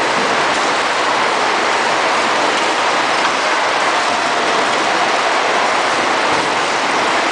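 Steady mechanical clatter of a running robotic palletizing line: roller conveyors and robot arms working without a break.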